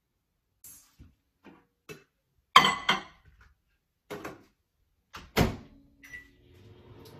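Over-the-range microwave being used: clicks and knocks as the door is opened and a bowl set inside, a loud thud as the door shuts about five and a half seconds in, and a single keypad beep. The microwave then starts running with a steady hum.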